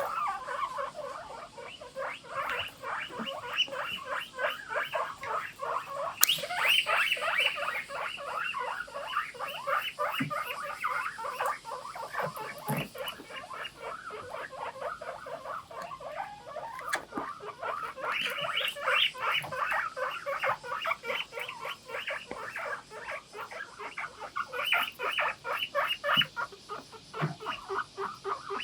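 Several guinea pigs wheeking together in a chorus: short high calls repeating several times a second without a break, swelling louder twice.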